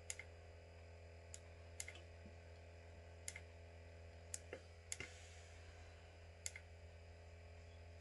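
Near silence with a steady low hum, broken by faint, sharp clicks from hands handling things, about ten of them scattered irregularly, some in quick pairs.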